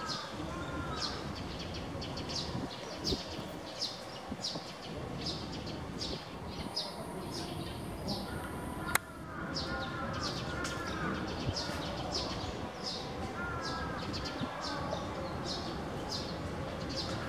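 Small birds chirping in a city park: high, short chirps repeating about twice a second, with groups of descending whistled notes at the start, about halfway and again about two-thirds through, over a steady outdoor hum. A single sharp click about halfway is the loudest moment.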